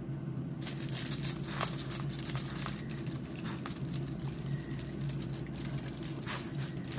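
Knife and fork sawing and scraping through air-fried pork spare ribs on a sheet of aluminium foil, the foil crinkling with many small irregular clicks and scrapes. A steady low hum runs underneath from the air fryer, which is running.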